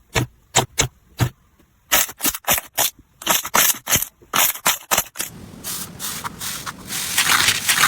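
Slime being pressed and squeezed by hand: a run of sharp separate pops and clicks, then from about five seconds in a denser, continuous crackling.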